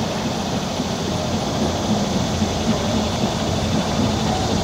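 A train hauled by a USATC S160 2-8-0 steam locomotive rolling across a river bridge, a steady dense rail noise with no break.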